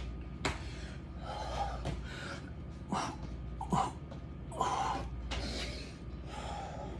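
A man breathing hard and gasping in short, noisy breaths from the exertion of a burpee-style exercise, with a sharp tap about half a second in.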